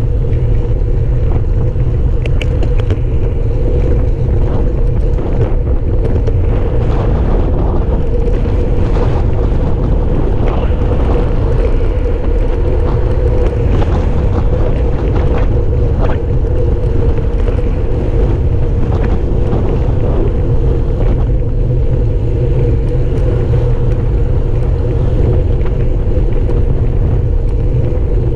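Wind rush and road noise on a handlebar-mounted camera's microphone while cycling along a road: a steady low buffeting with a constant hum above it.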